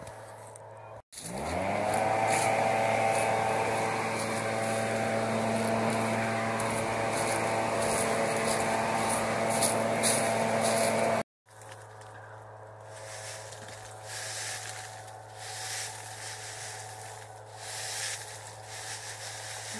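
A motor spins up about a second in and runs at a steady pitch for about ten seconds, then stops abruptly. After that, fallen coffee cherries and dry leaves swish and rattle in a woven sieve, shaken in repeated tosses as the coffee is winnowed.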